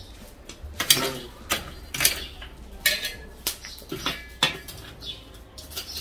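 Metal tongs clanking and scraping against a charcoal kettle grill and its coals: a string of about six sharp metallic clanks, one ringing briefly.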